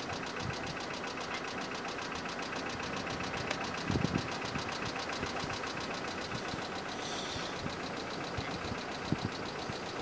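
A motor running steadily, with a fast, even ticking. Low gusts of wind buffet the microphone about four seconds in and again near the end.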